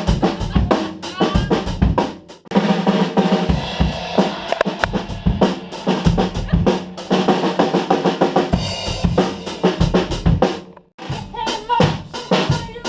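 Drum kit being played in a fast groove of bass drum, snare and rimshots, with two short breaks, about two seconds in and near the end.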